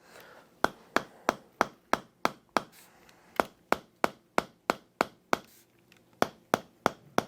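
Toksen massage: a wooden mallet tapping a wooden chisel-like peg held against the muscle around the shoulder blade. It gives sharp, even knocks about three a second, in runs of six or seven with brief pauses between.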